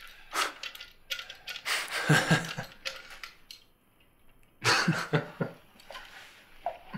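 Men laughing in short breathy bursts, about two seconds in and again about five seconds in.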